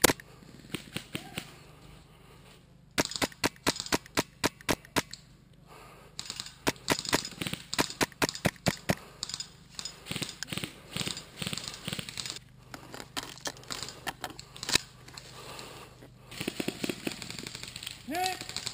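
Airsoft rifle firing sharp single shots in quick strings of several, about three to four a second, with short pauses between the strings.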